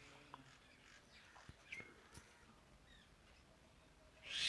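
Near silence on a workbench: a few faint light clicks from small parts and tools being handled, and a brief rustle near the end.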